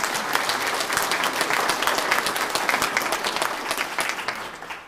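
Congregation applauding, many hands clapping at once; the applause holds steady, then fades out near the end.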